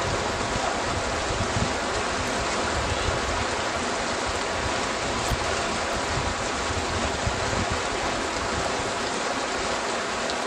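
A shallow mountain creek rushing over rocks: a steady, even water noise.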